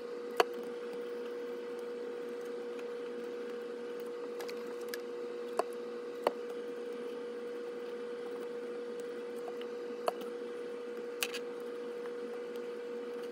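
Light clicks and taps of small plastic HO-scale locomotive truck parts being handled and set down on the workbench, a handful spread through, the loudest about half a second in, over a steady hum.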